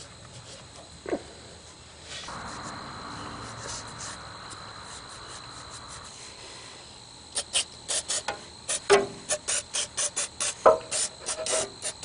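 A steady hiss for about four seconds, then an aerosol spray can being shaken, its mixing ball rattling in quick sharp clicks about four times a second.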